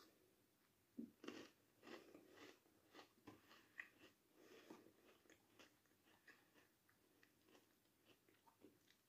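Faint biting and crunching chewing of a crumbly, milk-chocolate-covered cocoa biscuit, close to the microphone. A bite about a second in, then irregular crunchy chewing that thins out towards the end.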